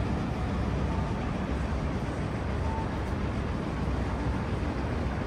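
Steady rumble of city road traffic in the open air, with a few brief faint high tones.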